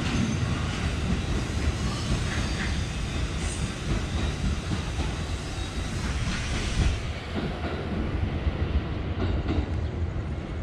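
Electric commuter trains running on the tracks: a steady rumble with wheels clattering over the rails, loudest at first and easing slightly as the trains move away.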